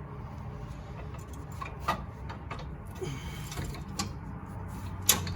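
Metal clicks and knocks as a wheel hub bearing assembly is worked onto the CV axle splines and into the steering knuckle, a few separate knocks over a steady low hum.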